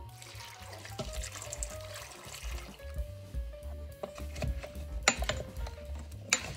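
Water pouring into a stainless steel pressure-cooker inner pot over chopped pumpkin for about three seconds, then a wooden spoon stirring the pieces and knocking against the pot several times. Background music plays underneath.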